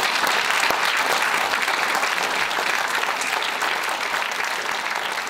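Audience applauding: many people clapping steadily, easing off slightly toward the end.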